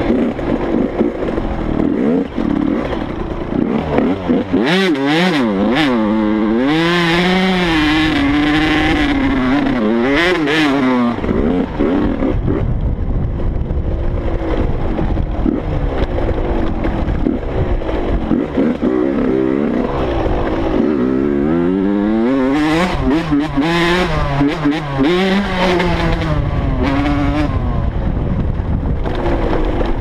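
Dirt bike engine heard from the rider's helmet, revving up and down again and again as it is ridden over rough ground. There are two busy stretches of rising and falling revs with steadier running between. Wind rumble on the helmet-mounted microphone runs underneath.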